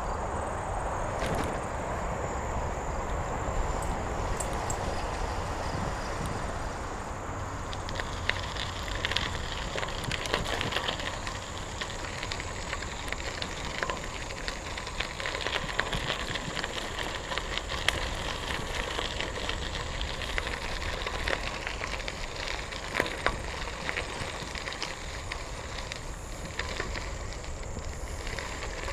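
Bicycle tyres rolling over a gravel trail: a steady crunch with many small clicks from loose stones under the wheels.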